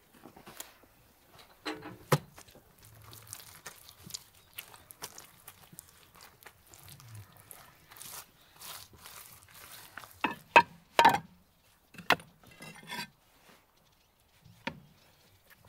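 Wet mortar being worked by hand and clay bricks set into it, with scattered knocks and scrapes and a few loud sharp clinks of brick on brick about two-thirds of the way through.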